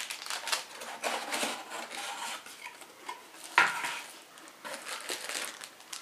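Hands rummaging in a cardboard box, with small rustles and clicks of cardboard and bagged cables being handled, and one sharp knock about three and a half seconds in.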